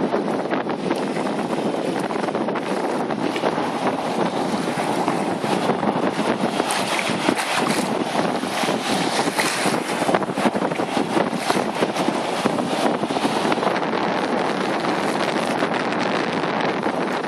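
Wind rushing on the phone microphone over the wash of shallow surf swirling and splashing around pink rubber wellington boots standing in the sea, with busier splashing around the middle.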